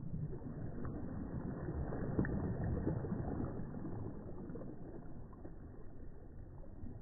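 Small waves breaking softly close by: the wash of water swells about two seconds in and then slowly eases back.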